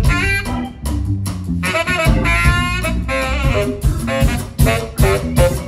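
Swing band playing live: saxophones and brass play short phrases over a drum kit beat.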